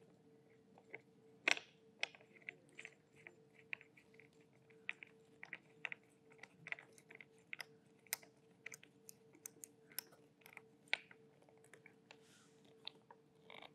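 Faint, irregular small clicks and taps of mount hardware being handled, as a number 6 bolt with a Bellevue washer is started and turned by hand into a ram-style mount's knuckle. A faint steady hum sits underneath.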